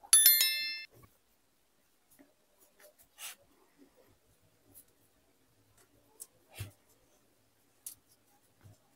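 A bright electronic chime of several high tones stepping down, lasting under a second just after the start: a subscribe-bell sound effect. After it come faint rustles and a few soft clicks as a fabric camera neck strap is worked through the strap lug and buckle.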